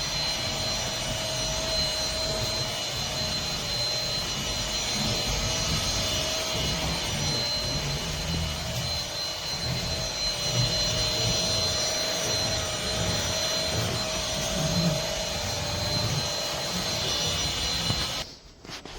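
PRETTYCARELIFE cordless stick vacuum cleaner running: a steady high motor whine over rushing air, stopping abruptly near the end.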